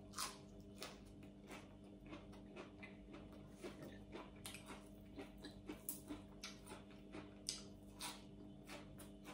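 Faint chewing of boiled pig stomach and fresh greens, soft wet mouth clicks a few times a second, over a steady low hum.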